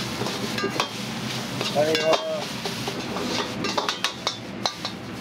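Metal ladle clanking and scraping against a wok, with a string of sharp clinks, over a steady frying sizzle.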